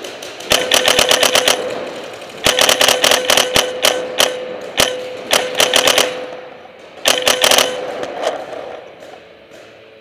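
Paintball marker firing in rapid strings of shots, several bursts of about ten shots a second with short pauses between.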